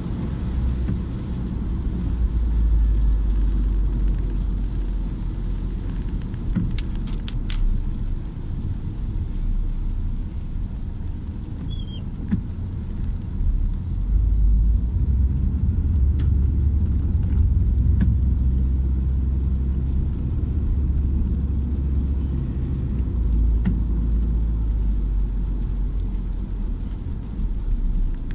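Inside a moving car's cabin: a steady low rumble of engine and tyres on a wet road, swelling and easing a little with speed. A few light clicks come about seven seconds in.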